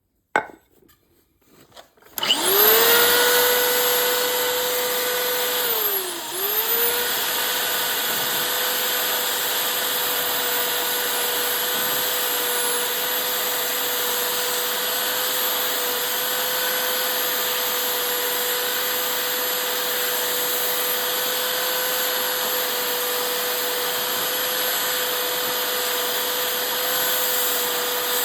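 An electric motor switched on, spinning up to a steady high whine. It slows briefly about six seconds in, as if loaded, then runs steady again.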